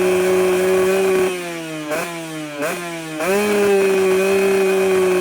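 Modified Yamaha 125ZR's single-cylinder two-stroke engine revved hard and held at high revs, dropping off the throttle about a second in, blipped twice, then snapped back up and held high.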